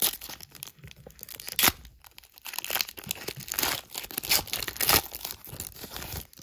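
Foil wrapper of a 2021 Sage Hit Premier Draft football card pack being torn open and crinkled by hand, in a run of irregular rips and crackles, the sharpest at the start, about a second and a half in, and near five seconds.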